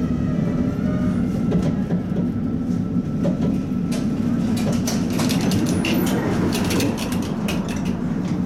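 Tatra T3 tram running along the rails: a steady low rumble of wheels and running gear. In the second half it is joined by a run of sharp clicks and clacks and a few short high squeaks.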